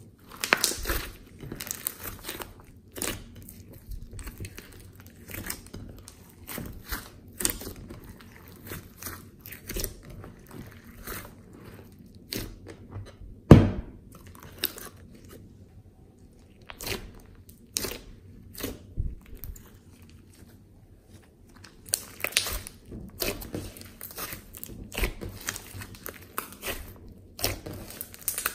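Glossy slime being squeezed, pressed and stretched by hand: irregular wet squishes and crackling pops as air pockets in the slime burst, with one much louder sharp pop about halfway through.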